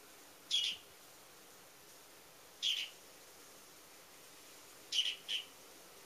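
A small songbird calling: four short, high chirps, spaced about two seconds apart, with the last two in quick succession.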